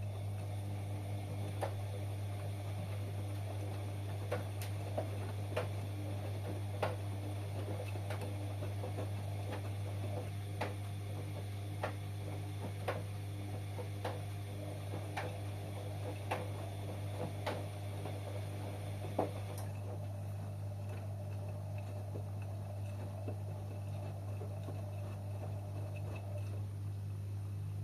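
Washing machine running a wash: a steady low hum with irregular clicks and taps as the drum turns. The clicks stop about 19 seconds in, and the sound thins again near the end.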